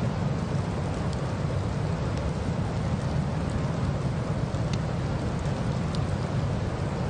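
Steady rushing road, tyre and wind noise of a moving car in a snowstorm, heavy in the low end, with a few faint ticks.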